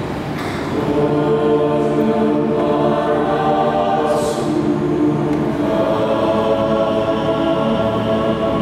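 Mixed choir of women's and men's voices singing in harmony, holding chords that change every second or so.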